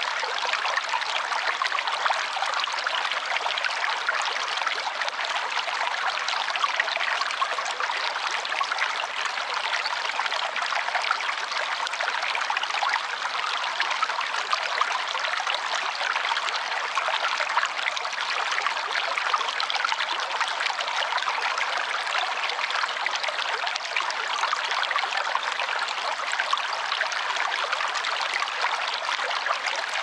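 A shallow stream running over rocks and stone slabs, a steady babble of water with a bright, hissing rush that never lets up.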